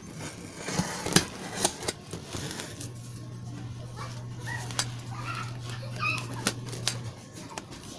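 Cardboard box being slit open with a utility knife and handled: a scattering of sharp clicks, taps and scrapes of cardboard and packing tape. A steady low hum runs underneath from about three to seven seconds in.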